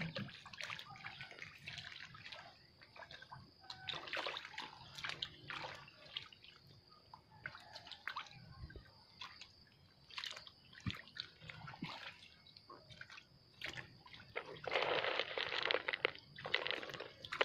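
Many frogs crowded in a shallow pond, moving and splashing in the water: scattered small splashes and drips, with a longer spell of louder splashing near the end.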